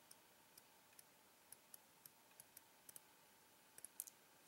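Faint, irregular light ticks, about a dozen, with a quick cluster near the end: the trimmed edge of camo mesh on a small styrene screen frame being dressed against a metal file.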